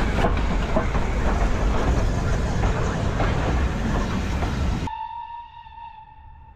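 BR Standard Class 9F 2-10-0 steam locomotive and its coaches passing close by: loud rumble and hiss with wheels clicking over the rail joints. About five seconds in this cuts off abruptly, leaving a long faint whistle note.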